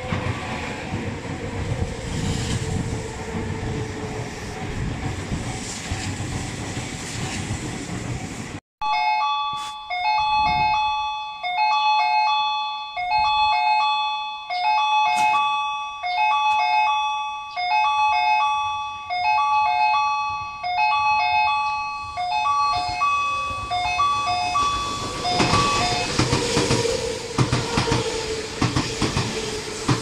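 Strong wind buffeting the microphone over the rumble of an approaching train. After a cut, a railway crossing warning bell dings in a steady two-tone pattern about once a second. Near the end the bell is drowned by wind and the noise of a Tobu 200 series Ryōmō express passing through the station close by.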